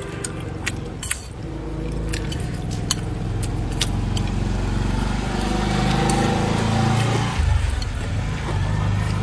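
Eating sounds: chopsticks clicking against a ceramic bowl and chewing, with sharp clicks scattered through the first few seconds. Underneath is a steady low rumble that grows louder about halfway through.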